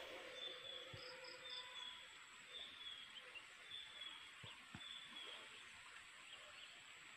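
Faint outdoor ambience: a short high chirp repeating about once a second over a thin steady high whine, from insects, with a few faint soft knocks.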